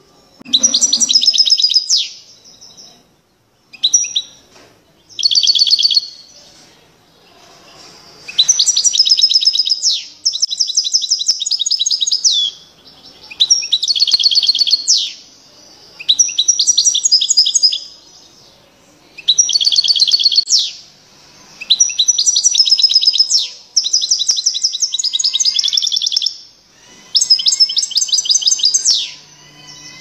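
European goldfinch singing loudly: about a dozen phrases of rapid, high twittering and trills, each a second or two long, with short pauses between.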